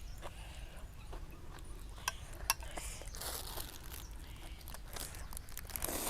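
A person eating at close range: chewing sounds with scattered small clicks, two sharper ones about two and two and a half seconds in.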